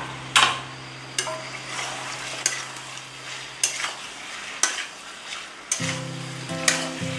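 Pork and potato chunks sizzling as they fry in oil in a metal kadai, stirred with a metal spatula that scrapes and knocks against the pan about once a second.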